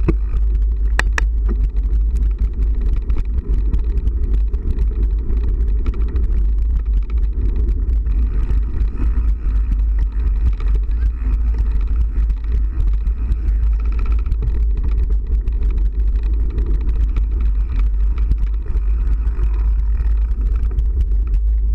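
Steady low rumble of a motor vehicle driving.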